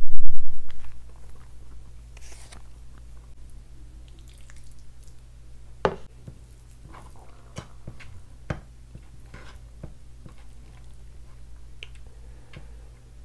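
Egg fried rice tipped from a plastic takeaway container onto a metal plate, with a loud thump in the first second. Then soft sticky squishes and a few sharp clicks as saucy chilli chicken pieces are picked up by hand.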